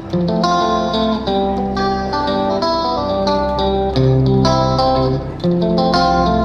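Background music: guitar playing a sequence of held notes, with a short dip about five seconds in.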